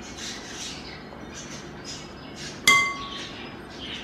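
Silicone spatula scraping paste off a steel spoon, then one sharp clink about two and a half seconds in as the spoon knocks the glass mixing bowl, which rings briefly.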